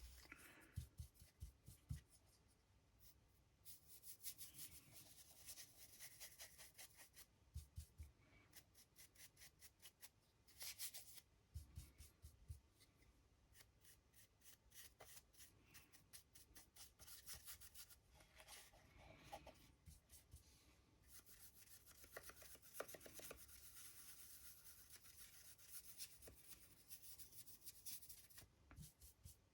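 Faint scratching and brushing of a paintbrush worked over a 3D-printed model in quick repeated strokes, with a few soft knocks.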